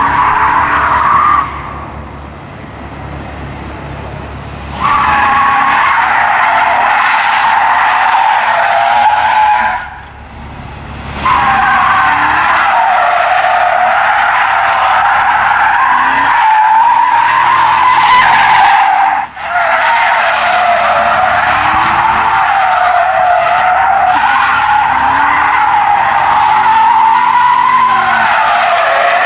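Car tyres screeching loudly through long drifts, the pitch of the screech wavering up and down, with the engine revving underneath. The screech breaks off for a few seconds near the start and for about a second around ten seconds in.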